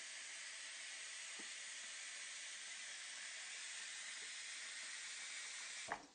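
Water running from a bathroom basin's lever tap as a steady hiss. Near the end the tap lever clunks shut and the running water stops suddenly.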